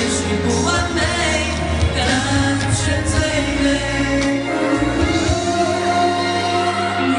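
Live pop song: a young male voice sings into a handheld microphone over a backing track, played through a venue's PA. The deep bass drops out a little past halfway.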